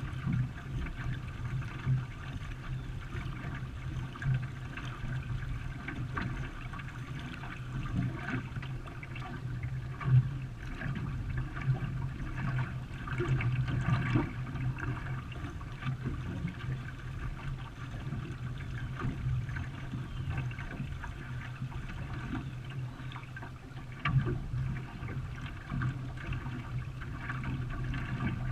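Water splashing and trickling around a racing canoe on a river, a continuous wash with a few brief louder knocks or splashes.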